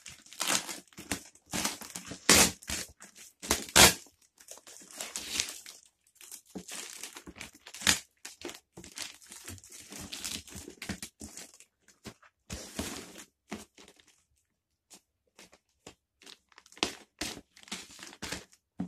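Plastic packaging being cut open with scissors, torn and crumpled by hand: irregular crinkling, rustling and tearing, loudest in the first few seconds, with a short pause in the last third.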